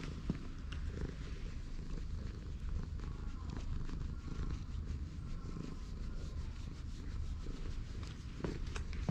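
Orange tabby cat purring steadily close up while being stroked.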